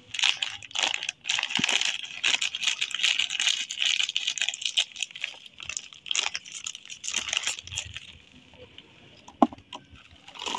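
Scissors cutting open a crinkly plastic snack bag, the packaging crackling and rustling densely for about seven seconds, then quieter with a few single clicks near the end.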